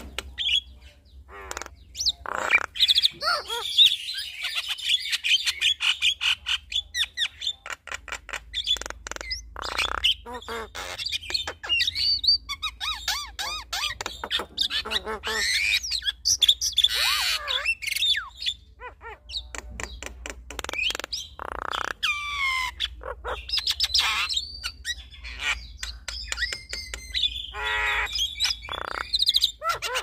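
A pair of Javan mynas calling back and forth in a duet: quick runs of clicks, whistled notes that slide up and down, and harsh squawking calls.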